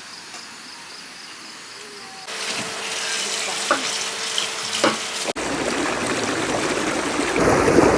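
Faint insect ambience gives way suddenly, about two seconds in, to running water, which jumps louder again after a brief break in the middle and keeps growing towards the end.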